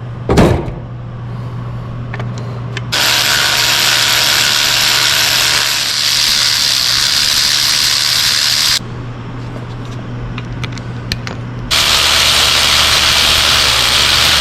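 A power tool run in two long stretches, about six seconds and then about three seconds, to unbolt fasteners. A single knock comes near the start, and a steady low hum runs underneath throughout.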